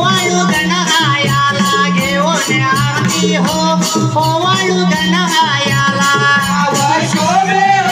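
Marathi folk devotional song (a gan in jakhadi style) sung over a steady beat of shaken jingling percussion, with a sustained low drone underneath.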